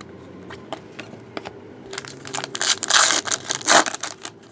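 Crinkling and rustling of trading card packaging, with small clicks of cards being handled. The crinkling swells loudest a little past halfway and lasts about a second and a half.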